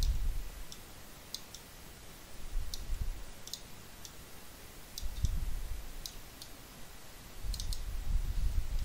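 Computer mouse clicking: a dozen or so short, sharp, irregular clicks, some in quick pairs. Among them are several low, muffled rumbles lasting up to a second or so, which are louder than the clicks.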